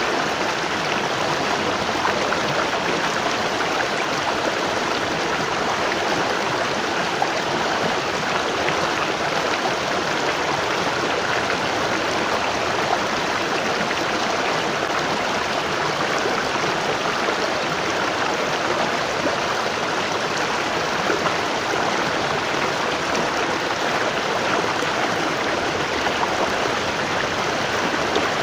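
Waterfall: water falling and rushing in a steady, even roar of white-noise-like splashing.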